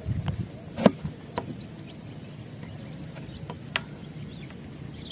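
Field ambience: a faint steady high insect drone with a few faint short chirps, broken by three sharp clicks about a second in, a moment later, and near the end.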